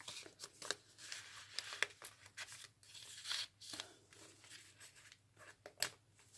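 Paper rustling and crinkling as the pages, tags and envelope of a handmade junk journal are handled and turned, with scattered light taps; the sharpest tap comes a little before the end.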